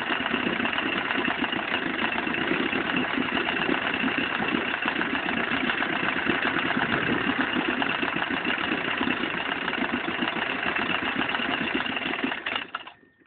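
Veterok-8 two-cylinder two-stroke outboard motor running steadily at idle, then shut off near the end, the sound dying away quickly. The motor has a knock that its owner is investigating.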